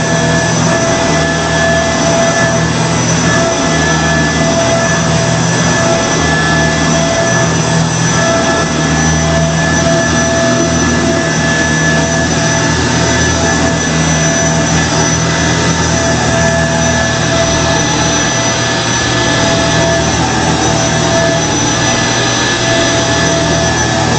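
2006 Kenmore Progressive Intelliclean vacuum cleaner running steadily, a loud motor whine with a few fixed high tones over airflow hiss, with small shifts in the low end.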